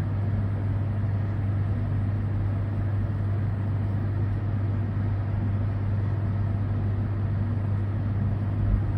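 A steady low hum on one pitch under a faint even hiss, with a single soft bump near the end.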